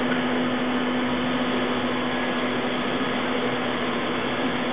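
CNC inverted vertical lathe running through a traverse cycle, giving a steady machine hum with a constant low tone over a hiss.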